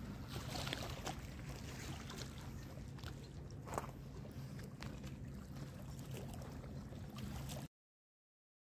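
Lakeshore ambience: a steady low rumble with water noise and scattered small clicks. It cuts off abruptly shortly before the end.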